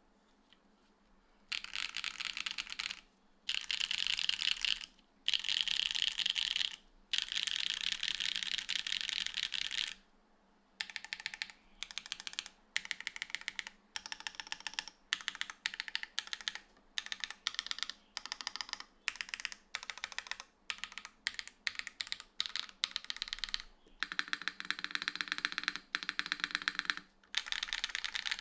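Typing on a Tofu65 3.0 mechanical keyboard with TTC Red linear switches, GMK Darling keycaps, a full aluminium plate and a gasket-mounted PCB with no foam. Fast runs of keystrokes with short pauses start about a second and a half in, with a longer break about ten seconds in.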